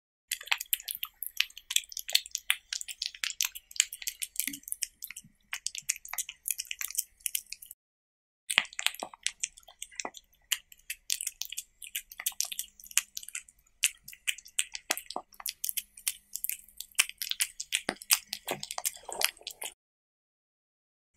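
Close-miked cat eating diced cucumber, tomato and meat off a tortilla: rapid wet smacking, licking and chewing clicks. There is a brief pause about eight seconds in, and it stops shortly before the end.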